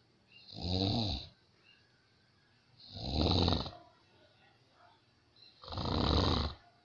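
A person snoring loudly: three long snores about two and a half seconds apart, with quiet between them. The snoring is loud enough to be likened to a helicopter.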